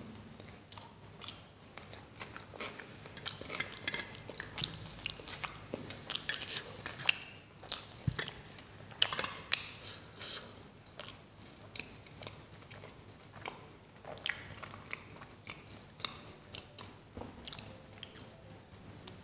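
A person biting and chewing paratha flatbread: a long run of quick mouth clicks and bites, busiest in the first half.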